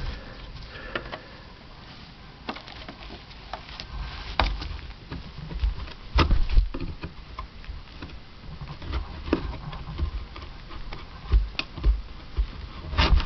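Rubber cover of a VW Beetle running board being pried and pulled off its metal retaining lip, held fast by old underseal: scattered clicks and knocks, with a few dull thumps about halfway through and again near the end.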